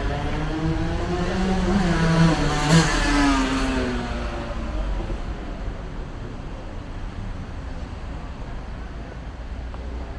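A motor vehicle drives past on the street. Its engine note swells and then drops in pitch as it goes by, loudest about two to three seconds in. After that, only low traffic noise remains.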